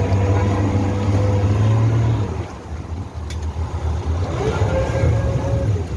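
A vehicle engine running under load, with a low rumble and a whine that rises and falls. It surges in the first two seconds and again about five seconds in.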